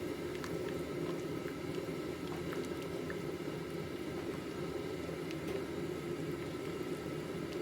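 Water boiling in a pot, a steady bubbling rumble with a few faint ticks.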